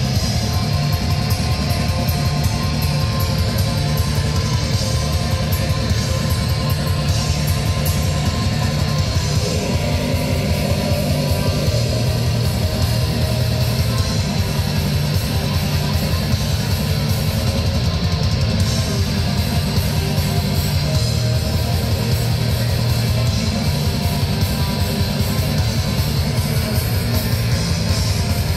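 Live black metal band playing: distorted electric guitars and a drum kit in a dense, unbroken wall of sound, heard from the crowd.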